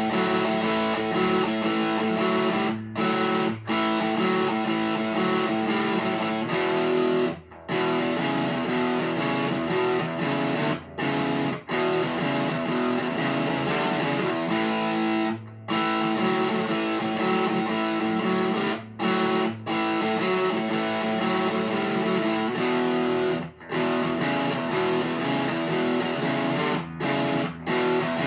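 Electric guitar with big single-coil pickups, played through an amplifier miked with an SM57. It plays a riff of held, ringing chords, broken by short stops every few seconds.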